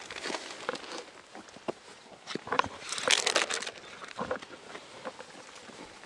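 Hiking boots stepping and scuffing on bare rock, with scattered knocks and a louder run of scraping and rustling about three seconds in.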